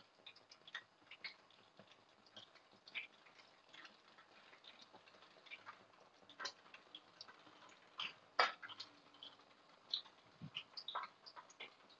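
Eggs frying in hot oil in a wok: faint, irregular crackling and popping of spattering oil, with a few louder clicks about six and eight seconds in.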